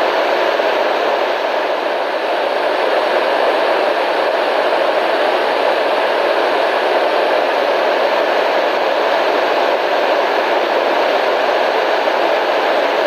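Loud, steady radio static: a constant hiss with no breaks, fuller in the middle than bright at the top.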